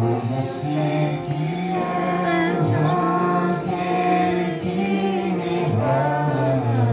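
Music with singing voices, holding long sung notes.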